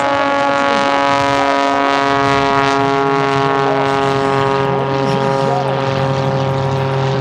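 Propeller aircraft engine running at a steady speed, an even droning tone with faint voices in the background.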